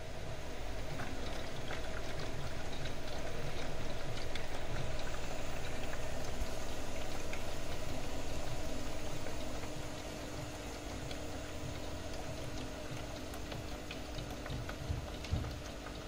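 Miele Softtronic toy washing machine running a wash cycle, with water splashing and trickling inside. About ten seconds in the water noise drops, leaving a steady low hum with small clicks.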